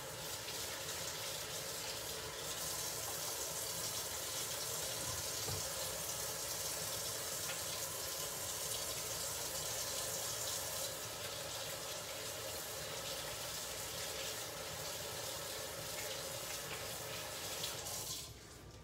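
Kitchen faucet running in a steady stream as hands are washed under it, shut off a little before the end.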